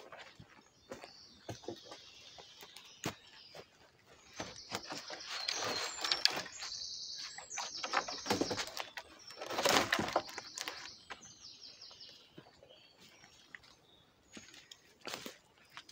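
Woodland songbirds singing in high trills and repeated phrases, over sharp knocks and scraping of dead wooden poles being handled and leaned against a ridge pole as shelter rafters, loudest about a third and two-thirds of the way in.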